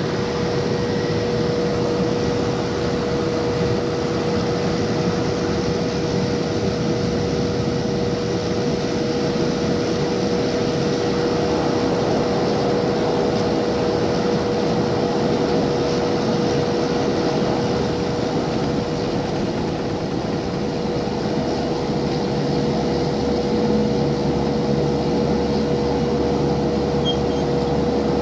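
Ferry engines and machinery droning steadily, with a constant humming tone throughout and a deeper hum coming in near the end.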